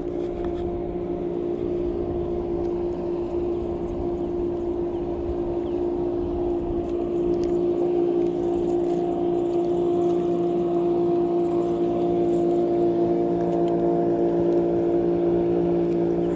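Motorboat engine running at a steady speed out on the lake: an even drone that holds one pitch and grows slightly louder.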